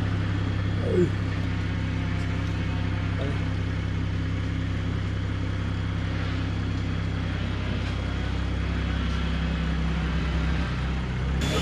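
2021 Toyota Supra's B58 turbocharged straight-six running at a steady idle through a titanium single-exit exhaust as the car creeps forward, a low even drone.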